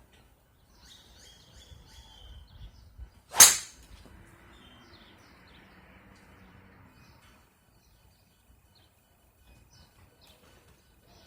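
A golf club striking a ball: one sharp, loud crack about three seconds in, followed by a faint fading hiss. Birds chirp faintly before the strike.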